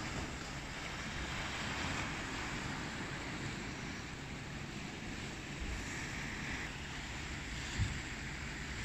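Steady wind and sea wash, with gusts of wind buffeting the microphone in low rumbles, the strongest about eight seconds in.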